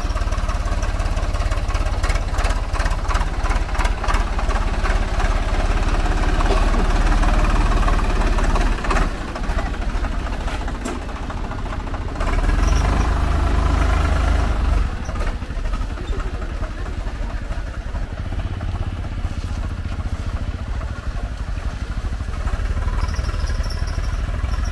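Diesel tractor engine running with a heavy low rumble, its loudness easing off and picking up again as the tractor moves.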